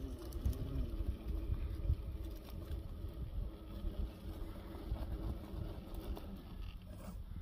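A Traxxas TRX-4 RC crawler's Hobbywing Fusion Pro 2300kV brushless motor and two-speed gearbox whining steadily at crawl speed as the truck climbs over rock, over a low rumble.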